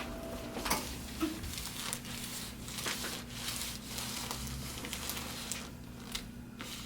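Faint rustling and small handling noises as a person shifts on a treatment table, with no joint crack, over a steady low hum.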